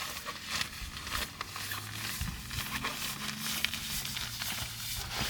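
Klymit inflatable sleeping pad being rolled up with its valve open to force the air out: the fabric rustles, with many small scattered crackles.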